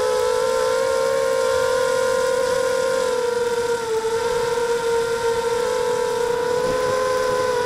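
Brushless motors and propellers of a 260-size FPV quadcopter whining steadily, heard close up from the quad's onboard camera. The pitch dips slightly about four seconds in, then steadies.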